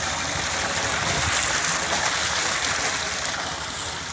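Water gushing from a solar-powered tubewell's PVC discharge pipe into a concrete tank, a steady splashing rush that eases a little near the end. The flow is weaker than usual, which the owner puts down to the solar panels being partly shaded.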